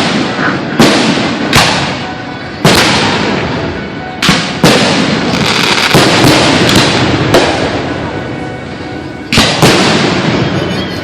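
Aerial fireworks shells bursting: a series of loud sharp bangs, each trailing off in a fading rumble. A rapid cluster of bursts comes in the middle, and after a short lull two more follow close together near the end.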